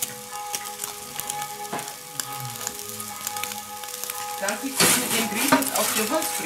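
Pizza crackling and sizzling on a hot pizza stone under the top burner of a Steak Burner XL grill, with many fine crackles. About five seconds in, a louder scrape as a metal pizza peel slides across the stone under the pizza.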